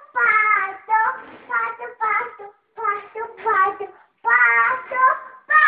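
A young child singing in short phrases with brief pauses between them.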